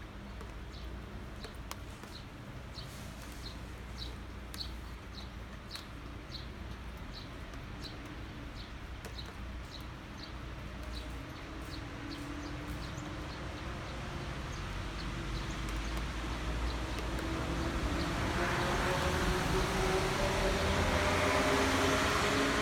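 Steady rain ambience with a bird's short high chirp repeated about three times a second, then a vehicle approaching and growing louder over the last several seconds, its pitch slowly rising.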